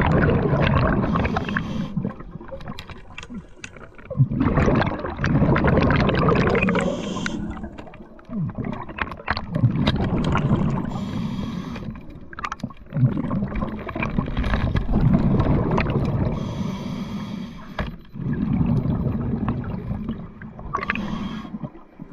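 Scuba diver breathing through a regulator underwater: a gurgling rush of exhaled bubbles alternating with shorter hissing inhalations, repeating about every four to five seconds.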